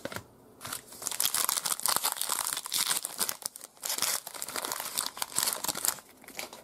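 Plastic foil wrapper of a 2020 Donruss football card pack crinkling and tearing as it is pulled open by hand. A dense crackle starts about half a second in and stops about six seconds in.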